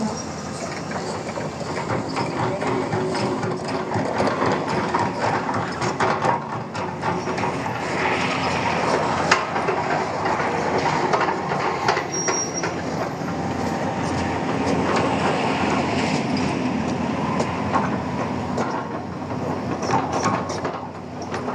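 Hyundai excavator working heavy: a steady engine noise with many irregular metallic clanks and knocks.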